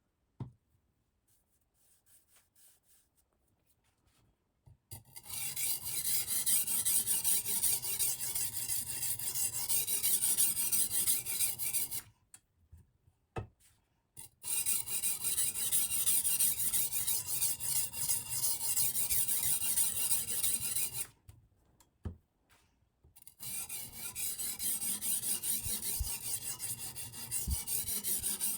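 Silicon carbide oil stone on a guided sharpening system being worked rapidly back and forth along the edge of a Damascus-clad VG10 chef knife, a steady grinding rasp of stone on steel. It comes in three long runs of about six to seven seconds each, with short pauses between them and a light click at the very start.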